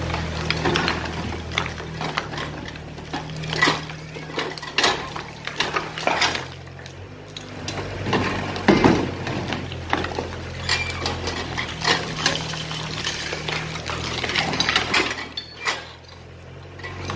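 Excavator's diesel engine running steadily under irregular cracks, clinks and clattering crashes of concrete and brick rubble breaking and falling during demolition, the loudest crash about nine seconds in.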